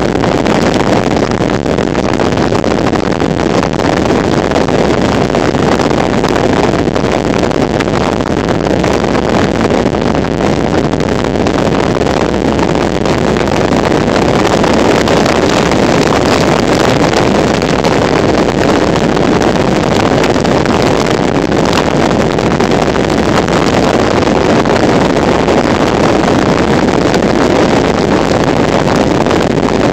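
Steady, even rush of road and wind noise from a car driving.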